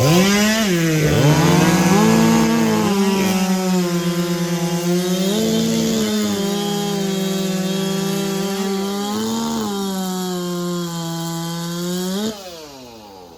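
Big-bore two-stroke race chainsaw (over 90cc) at full throttle cutting through a log. The engine pitch sags as the chain bites into the wood and picks up again as it frees, several times over. About twelve seconds in it cuts off abruptly and winds down.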